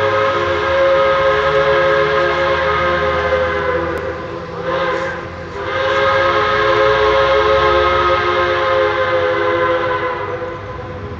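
Whistle of Central Railroad of New Jersey steam locomotive No. 113 blowing a long blast of several notes at once. It dips briefly about halfway through, sounds again, and fades near the end.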